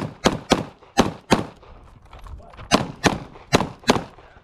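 Semi-automatic pistol fired rapidly during a timed stage, about nine sharp shots, mostly in quick pairs about a third of a second apart, with a break of over a second in the middle while the shooter moves to the next targets.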